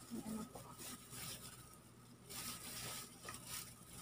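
Faint, irregular wet squishing and patter of hands working raw squid in water as it is cleaned.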